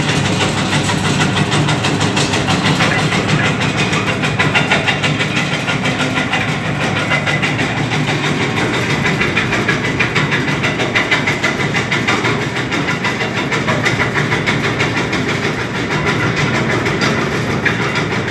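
Electric areca nut (supari) cutting machine running steadily: a motor hum under a fast, even clatter of the nuts being chopped, with the cut pieces rattling out of the chute into a plastic tray.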